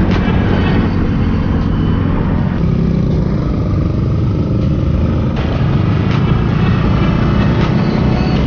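Yamaha motor scooter riding in city traffic: a steady engine and road rumble from the rider's own bike, with other motorbikes around.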